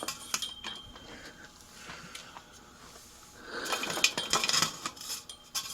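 Light clinking and rattling of small hard objects being handled: a few sharp clicks near the start, then a denser clattering rattle from about three and a half seconds in.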